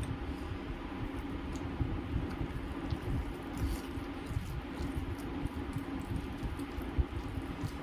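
Fingers squishing and mixing soft rice on a steel plate, with scattered faint sticky clicks, over a steady low background hum.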